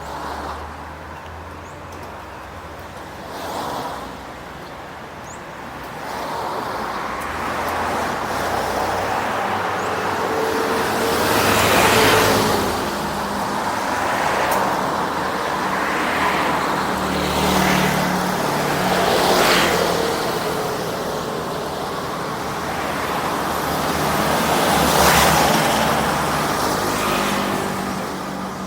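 Street traffic, with several vehicles passing close by one after another, each rising and fading, over a steady background of road noise.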